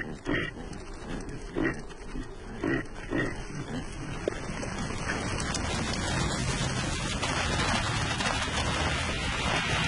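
Caribou grunting: about five short grunts in the first few seconds, then a steady noise that swells louder toward the end.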